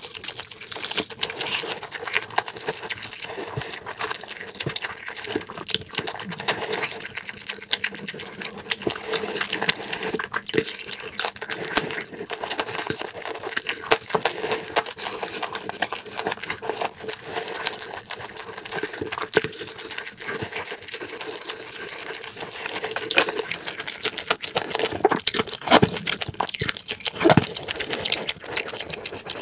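Close-miked chewing: a person eating with the mouth full, a steady run of wet mouth clicks and smacks, with a few louder smacks near the end.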